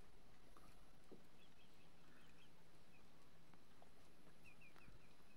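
Quiet background with a faint steady low hum, broken by two short runs of faint, high, quick chirps from a small animal.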